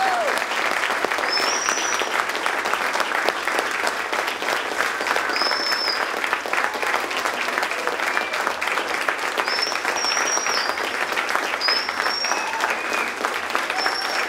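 Audience applauding steadily after a string orchestra piece, many hands clapping at once, with a few short high calls rising above the clapping.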